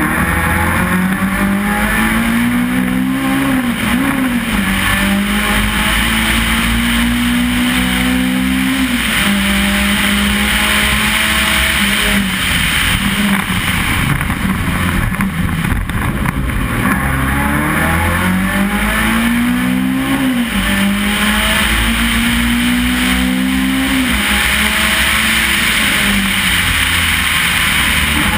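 Race car engine heard from inside the car, accelerating hard and changing up through the gears: the note climbs, drops at each shift and climbs again, twice over, with lower-revving stretches between the two runs. Steady loud wind and road noise throughout.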